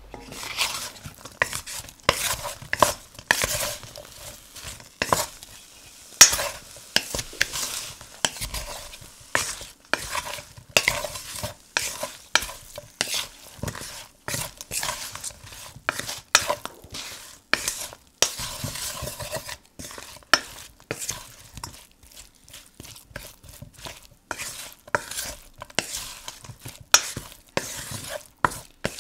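Wooden spatula stirring and tossing chunks of roasted vegetables and pesto in a metal wok, with irregular scrapes and knocks against the pan.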